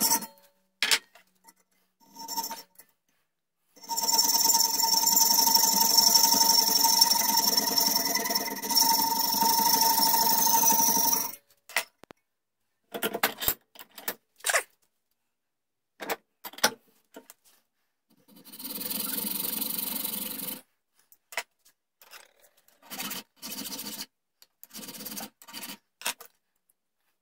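Hacksaw cutting through a piece of scrap brass clamped in a bench vise, with a faint metallic ring under the sawing. A long unbroken run of sawing lasts about seven seconds, with a shorter, quieter run later. Brief scrapes and clicks of handling the metal and tools come in between and near the end.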